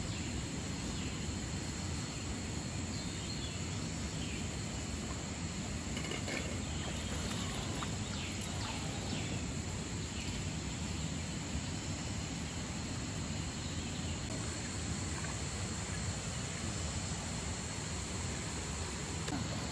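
Steady forest ambience: insects trilling continuously over a low, even rush of flowing river water.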